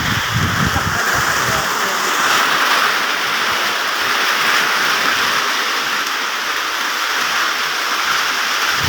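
Steady rain falling on plant leaves: a dense, even hiss of raindrops, with a few low thumps in the first second or so.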